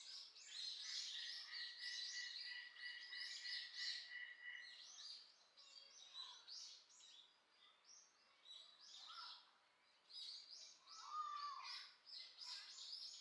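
Faint chirping of small birds: many quick, high chirps, with a steady whistled note over the first few seconds and a short curved whistle near the end.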